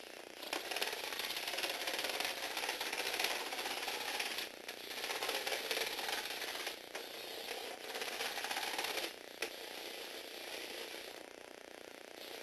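Small electric motor driving a plastic gear train in a motorised Lego Technic vehicle, a fast buzzing gear whir. It runs in three loud spells with brief stops between them, then turns over more quietly near the end.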